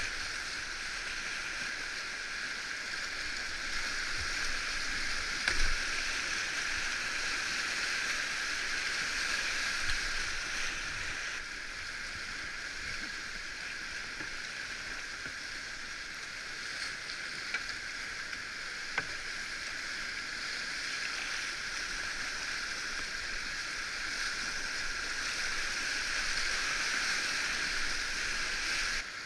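Whitewater rapids rushing around a kayak as it runs them: a steady hiss of broken water, with a few short knocks, the sharpest about five and a half seconds in.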